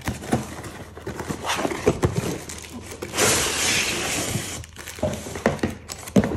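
Cardboard packaging being handled: scattered taps and scrapes, then a steady scraping rush lasting about a second and a half as the inner cardboard tray slides out of the box sleeve, followed by more small knocks and rustles.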